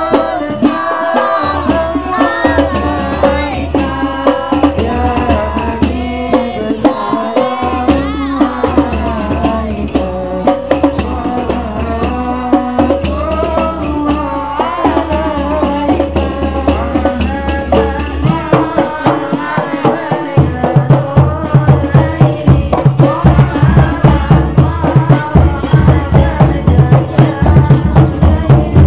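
A group sings a devotional Islamic song in Arabic, amplified through a loudspeaker, over rattling, jingling hand percussion. About two-thirds of the way in, hand drums come in with a loud, fast, steady beat.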